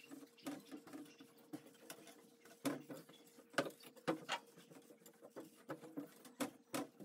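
Faint, scattered light knocks and clicks with soft rustling, as of things being handled and set down, over a faint steady hum.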